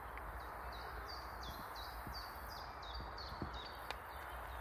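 A songbird singing a quick run of about a dozen short, high falling notes, roughly three a second, over a steady outdoor hiss, with a couple of faint clicks.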